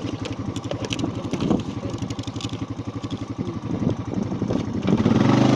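Quad bike engine running with a fast, even putter while it is ridden over rough paddock ground, with rattles and knocks over it; near the end the engine is opened up and gets louder and steadier.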